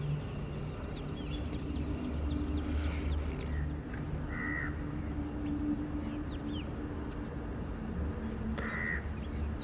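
Wild birds calling at a wetland: two short calls about four seconds apart, with faint scattered chirps over a steady low hum.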